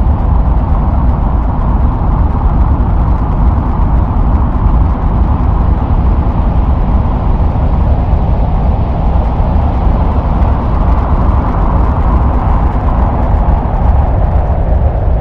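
Recording presented as the sound of Mars's thin, windy atmosphere: a loud, steady, deep rumble like wind noise, with no pauses or breaks.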